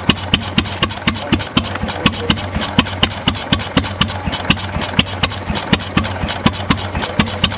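1919 Twigg 3 hp petrol stationary engine running at idle, its exhaust beats coming sharp and even at about four or five a second.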